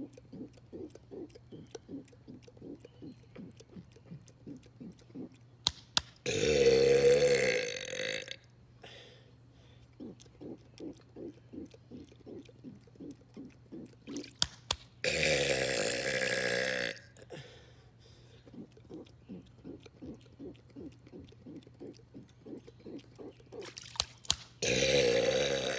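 A man's long, drawn-out burps, three of them about two seconds each, the last still going at the end. Between them come quieter rhythmic sounds, about two to three a second, and a couple of sharp clicks just before each burp.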